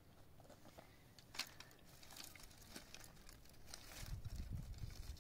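Faint clicks and crackles of dry sticks knocking together as firewood is gathered and laid down on stony ground, with one sharper click about a second in. A low rumble joins near the end.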